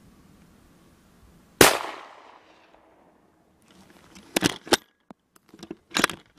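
A single shot from a .223 Remington Bars 4-1 bolt-action rifle: a sharp crack with a trailing echo that fades over about a second. It misses a fox at long range. A few seconds later come several short clicks and knocks.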